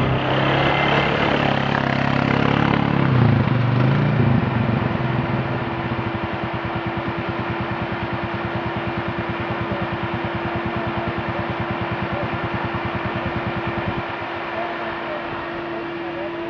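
Off-road vehicle engine running close by. It shifts in pitch for the first few seconds, then settles into an even idle with a steady throbbing pulse. The low throb drops off near the end.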